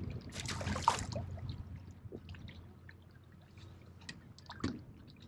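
Fishing line hissing off a spinning reel as the cast flies out, for under a second, then quieter water lapping with a few small clicks.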